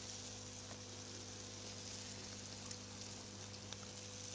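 Faint steady low hum under an even high hiss, with a few soft ticks.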